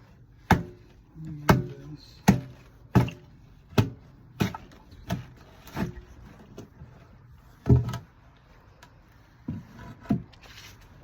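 Footsteps walking, a regular series of sharp thuds about one every three-quarters of a second, pausing briefly about two-thirds of the way through.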